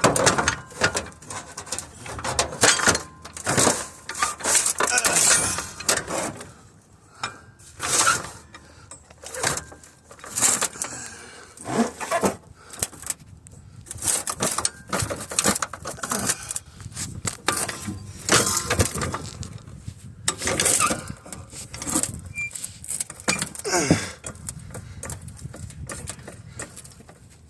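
Irregular metal clanks, knocks and scrapes of hand tools working on a van's wheel and brake hardware, with many sharp strikes at uneven intervals.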